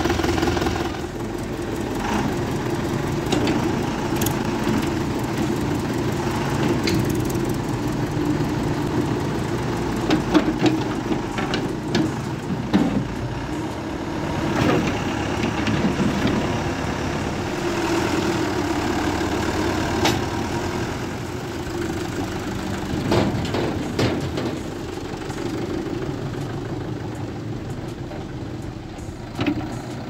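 Diesel engine of heavy farm or construction machinery idling steadily, with a few sharp knocks around the middle.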